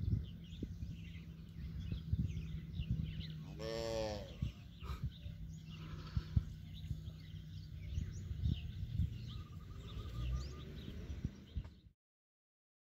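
Open-air ambience of wind rumbling on the microphone with scattered bird chirps, and one short cow moo about four seconds in. All sound cuts off about a second before the end.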